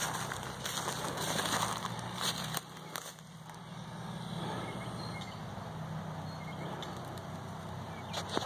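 Footsteps pushing through dry grass and scrub: rustling and crackling, heavier for the first couple of seconds, then lighter. A steady low hum runs underneath.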